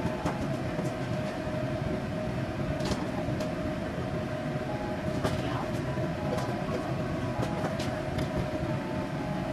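Spatula scraping and tapping against a wok as stir-fried bamboo shoots and beef are pushed onto a plate, with scattered sharp clicks. Underneath runs a steady low roar with a constant hum.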